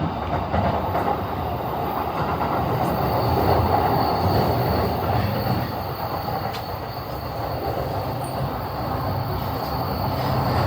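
E233-series electric commuter train running, heard from inside the car: a steady rumble of wheels on rail, with a thin high squeal held throughout and a few faint rail-joint clicks.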